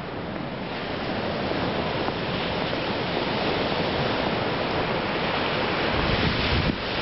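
Steady rushing noise of wind and sea surf, with wind buffeting the microphone; it swells over the first second, then holds steady.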